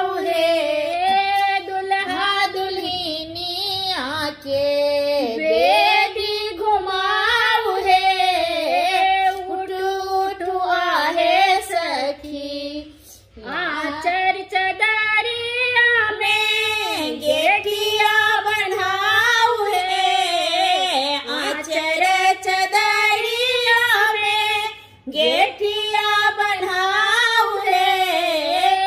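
Two women singing a Maithili wedding song together in a slow, ornamented melody, with two short breaks in the line.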